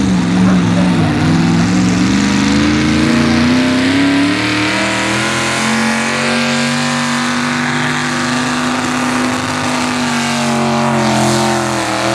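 Hot rod pulling tractor's V-8 engine running hard while pulling a weight-transfer sled. Its note sags about a second in, climbs back, holds steady through the middle, and rises again near the end.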